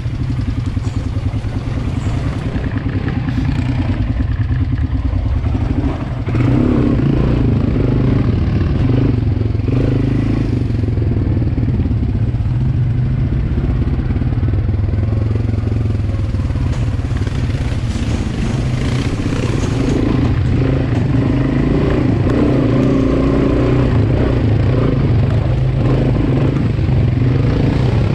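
Quad bike (ATV) engine running steadily at riding pace, heard on board the moving machine. It gets louder about six seconds in and holds there.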